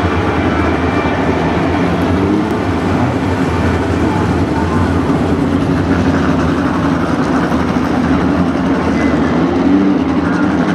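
Several speedcar engines running together as the field laps a dirt oval, a loud, steady, dense engine noise.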